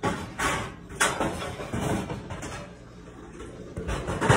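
A handful of short knocks and clatters, the loudest near the end, like cupboard doors and things being handled on a counter.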